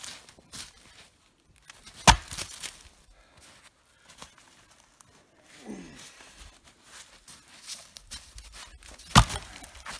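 Axe chopping into a tree trunk: two hard blows about seven seconds apart, with smaller knocks and crackling between them as the tree is cut through to fall.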